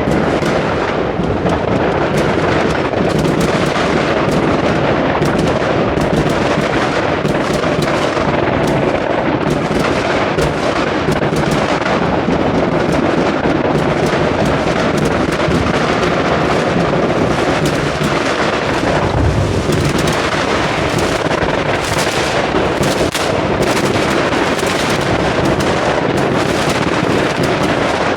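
Many fireworks going off at once: a continuous din of overlapping bangs and crackling, with sharper single bangs standing out more in the last several seconds.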